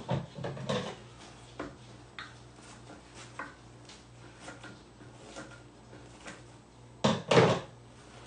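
Handling noises on a work table: a few short knocks and rustles, in two louder clusters at the start and about seven seconds in, with lighter taps between them, over a low steady hum.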